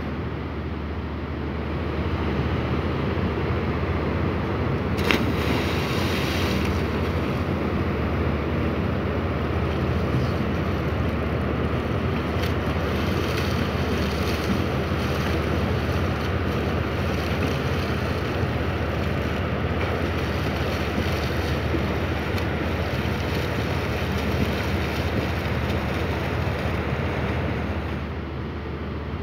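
Steady low rumble of a ship's engines with churning, rushing water and wind on the microphone; a single sharp knock about five seconds in.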